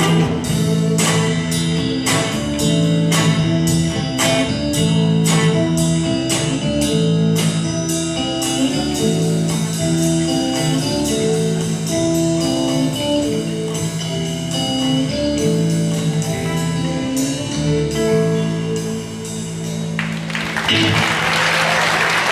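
A live band of guitars, bass, drums and keyboards plays a song over a steady beat. About two seconds before the end the drums stop, and the last chord rings under a burst of audience applause.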